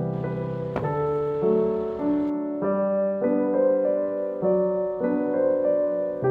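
Background piano music: gentle, slow chords changing every half second to a second.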